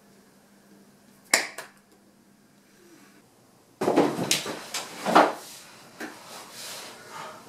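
Two sharp knocks about a second and a half in, then a run of thumps and knocks on wooden furniture about four seconds in, the loudest near the middle: a man landing on a round wooden dining table and another tumbling off a wooden chair onto the floor.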